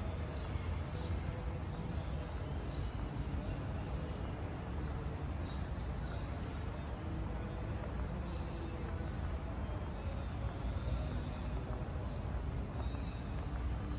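Small birds chirping: many short, high, falling calls, several a second, over a steady low rumble.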